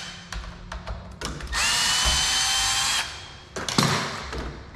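Cordless drill/driver runs for about a second and a half with a steady whine, backing a screw out of a door's deadbolt latch plate. Before and after it come small metal clicks and a sharp knock as the latch hardware is handled.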